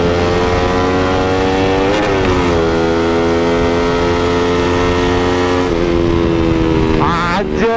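Bored-up Yamaha Vixion 200's single-cylinder four-stroke engine pulling hard under steady throttle. It shifts up about two seconds in and again near six seconds, its pitch dropping at each shift.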